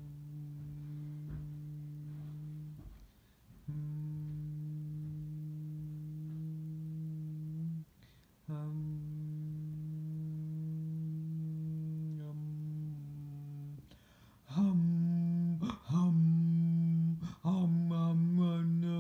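A person humming long, steady, flat notes, each held about four seconds with short breaths between them. From about three quarters of the way in come louder, shorter hummed or sung notes, a little higher in pitch.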